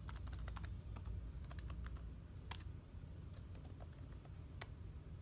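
Typing on a mid-2009 MacBook's built-in keyboard while a password is entered: a run of light key clicks, quicker in the first half, over a faint low hum.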